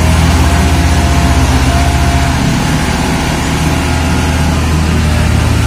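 New Holland 3630 tractor diesel engines running at low speed as the tractors move, a steady low throb with an even firing pulse.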